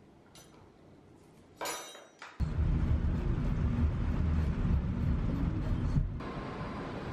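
A quiet room with a brief rustle, then about two and a half seconds in a sudden change to the steady low rumble of a car's cabin and road noise while driving in rain, which eases somewhat about six seconds in.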